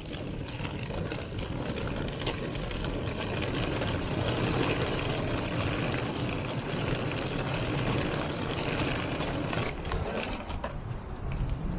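A steady mechanical running noise, like an engine, that dips briefly near the end.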